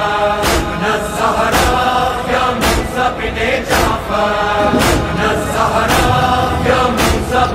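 Urdu noha, a Shia lament, with a group of voices holding long wordless notes over a steady percussive beat about once a second.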